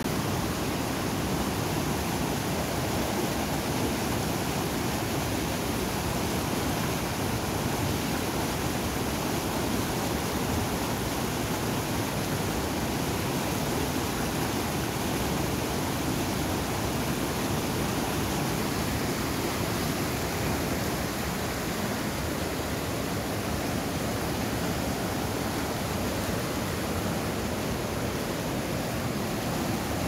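Fast mountain stream rushing over rocks and rapids: a steady, unbroken rush of white water.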